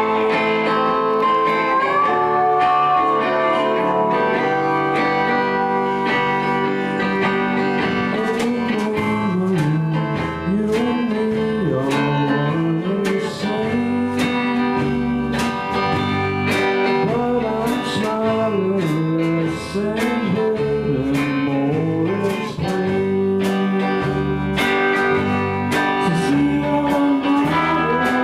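A live band playing a guitar-led song, with a bass line moving up and down underneath.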